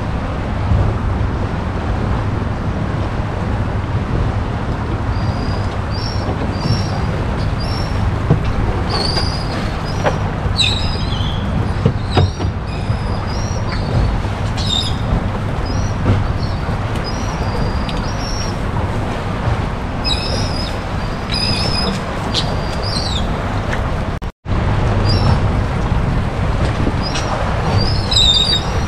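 Steady low rumble of wind and water around a boat, with short high bird chirps scattered throughout. The sound cuts out abruptly for an instant about three-quarters of the way through.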